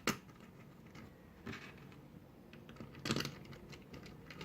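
Scattered light clicks and taps of small hard parts being handled and fitted back onto a 3D printer, the loudest cluster about three seconds in.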